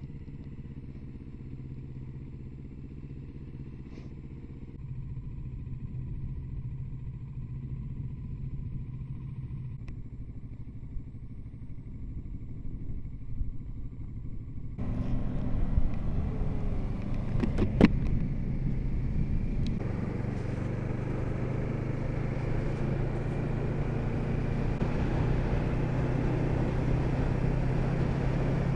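Kawasaki Z650RS parallel-twin motorcycle engine running steadily at low revs. About halfway through the sound changes abruptly and grows louder, with wind and road noise over the engine as the bike is ridden, and a single sharp click a few seconds after that.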